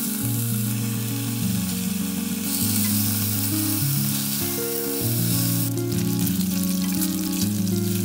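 Thin slices of pork belly sizzling as they fry in a hot pot and are turned with chopsticks: a steady hiss of fat, with the crackle and spatter growing denser about six seconds in. Background music plays underneath.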